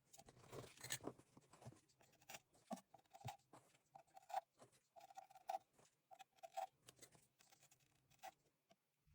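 Quiet handling sounds: an irregular string of light clicks, taps and scrapes, some with a brief squeak, fading out near the end.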